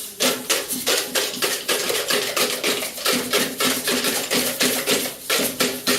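A children's praise group making noise: rapid clattering knocks and clinks, several a second without a break, with voices holding notes underneath.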